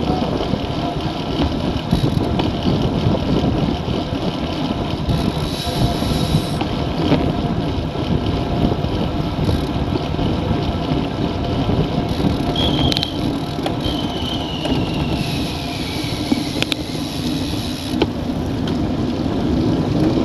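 Wind buffeting the microphone of a camera riding on a racing bicycle at about 40 km/h, mixed with tyre and road noise: a loud, steady rumble. A faint whine falls in pitch about two-thirds of the way through.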